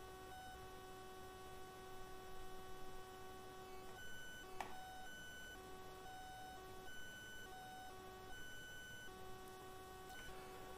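Faint electrical whine: a steady high tone with overtones that cuts in and out irregularly, with a single faint click about four and a half seconds in.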